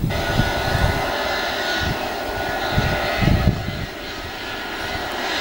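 Airbus A320-family jet airliner's turbofan engines running as it taxis, a steady whine with several tones, over irregular low gusting rumbles.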